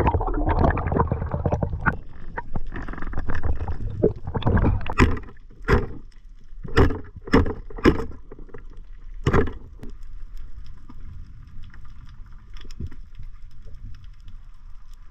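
Underwater sound of a diver going under: a loud rush of water and bubbles around the submerged camera, then six short loud gushes between about five and nine and a half seconds in. After that it settles into a quieter steady underwater hiss with faint scattered ticking.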